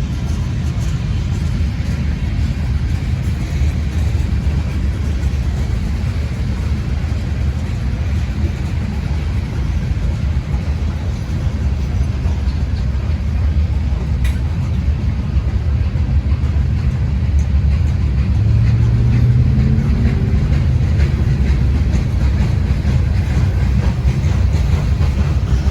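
Norfolk Southern diesel freight train running with a steady low rumble; a locomotive engine tone rises about two-thirds of the way in as it works.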